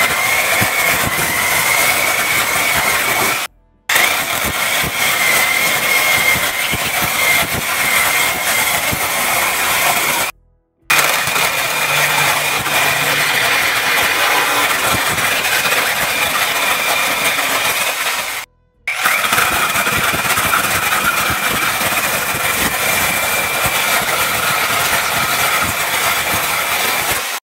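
Small cordless battery-powered chainsaw running and cutting through branches. It makes a steady high whine along with the rasp of the chain in the wood. The sound cuts out abruptly to silence three times for a moment.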